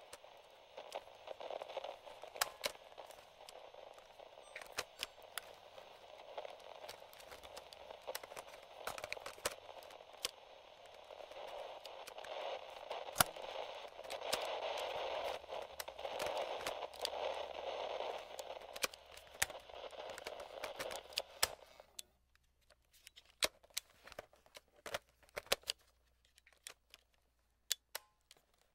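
Light radio static from a vintage AM/FM portable cassette-recorder radio: a steady hiss peppered with crackles and clicks, growing louder in the middle, then cutting off suddenly about three quarters of the way through. After that only a few scattered sharp clicks of its plastic slide controls.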